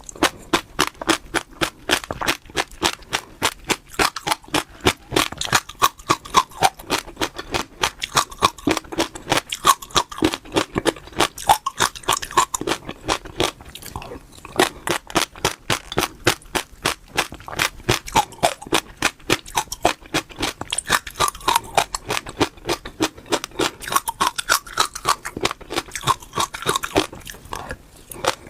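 Seeds crunched between the teeth, close to the microphone: rapid crisp cracks, several a second, keeping up throughout with soft mouth sounds between them.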